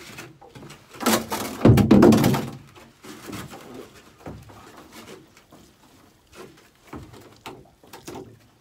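Knocks and scrapes from a herring drift net being handled over the side of a small open boat, with one loud rush of noise about a second in that lasts about a second and a half.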